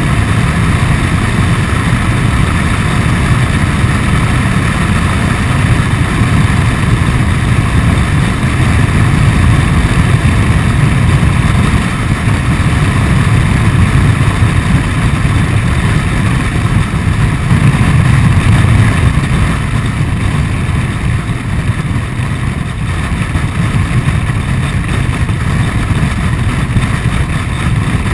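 Honda Forza 125 scooter cruising at steady speed: its single-cylinder engine and road noise under a steady rumble of wind on the on-board camera's microphone.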